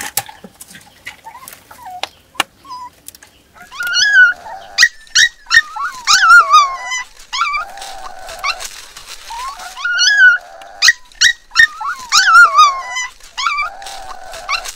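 Black puppies crying in distress from the bottom of a dry well: high, wavering whimpers and yelps, repeated over and over from about four seconds in. A few sharp knocks and scrapes come before the crying starts.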